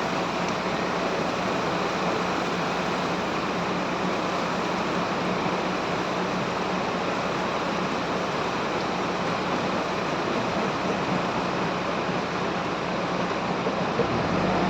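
Bull 4×4 backhoe loader's engine running steadily: a constant hum under a dense, even hiss.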